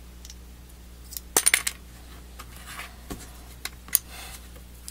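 Small plastic model-kit parts from a Master Grade Gundam AGE-2 leg clicking and clattering against each other and the cutting mat as they are handled and set down: a quick cluster of sharp clicks about a second and a half in, then a few single clicks.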